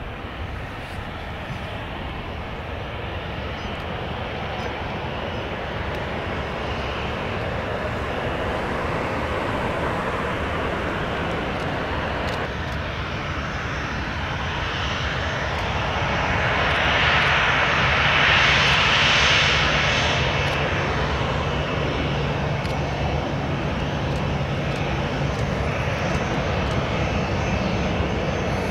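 Boeing 737-800's twin CFM56 turbofan engines on arrival, a steady jet roar that grows louder through the first two-thirds, is loudest about two-thirds of the way in, then eases a little while a low steady hum holds.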